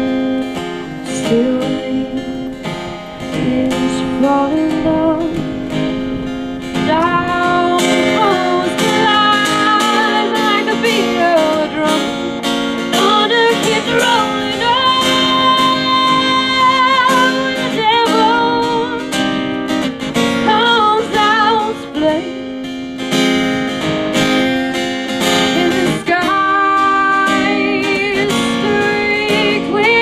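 Strummed acoustic guitar with a woman singing over it, holding long notes with vibrato.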